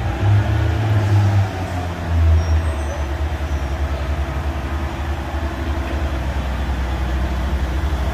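Heritage diesel train's engine running with a deep, steady throbbing rumble, which swells twice in the first couple of seconds and then holds level.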